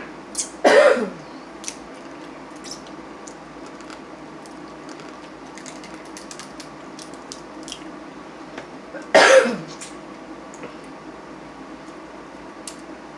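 Blue crab shells being cracked and picked apart by hand: scattered small clicks and snaps over a faint steady hum. Two short throaty vocal sounds, falling in pitch, about a second in and about nine seconds in, are the loudest.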